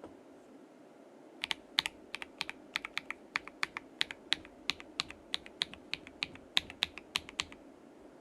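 Typing on a KBD67 Lite gasket-mount mechanical keyboard with a polycarbonate plate and Akko CS switches: quick, uneven keystrokes, about four a second, starting about a second and a half in and stopping near the end.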